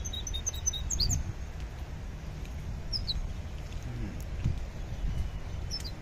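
A caged mixto, a goldfinch × canary hybrid, singing: a quick run of short, high twittering notes in the first second, then single high chirps about three seconds in and near the end. The bird is young and its song is still unsettled.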